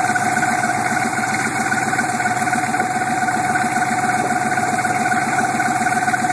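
1987 Suburban's 6.2 L V8 turbo diesel idling with a fast, even clatter, a steady high-pitched tone held over it throughout. This is the weird start-up noise that has grown louder over a year and usually goes away once the engine warms up.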